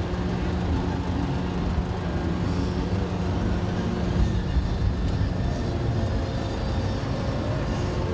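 Steady low engine rumble with a constant hum that fades out about two-thirds of the way through.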